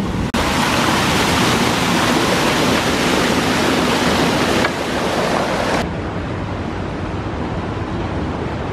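Water gushing over and through a canal lock's top gate into the lock chamber: a loud, steady rush of churning white water. It becomes softer and duller about six seconds in.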